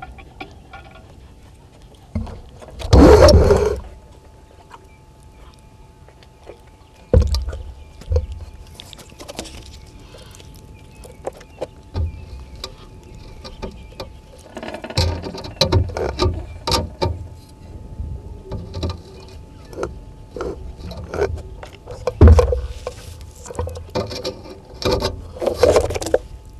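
Vervet monkeys handling the camera equipment close to the microphone: irregular bumps, scrapes and rubbing as the taped black dome housing is shifted on its mount. A long scraping burst comes about three seconds in, a sharp knock a few seconds later, and a dense run of knocks and rubbing fills the second half.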